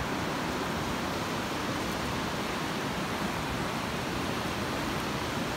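Steady rush of a creek running high and fast after heavy rain.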